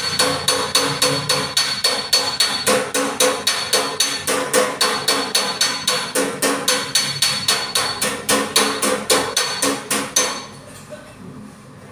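Finishing hammer striking a dented steel body panel in a fast, even run of about five blows a second, with a metallic ring: the panel being worked over a dolly to bring the dent up. The hammering stops suddenly about ten seconds in.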